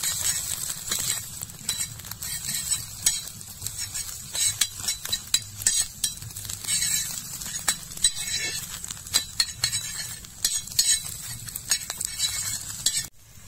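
Metal spatula repeatedly scraping and tapping on a flat iron tawa while stirring and chopping scrambled egg and onion, with frying egg sizzling underneath.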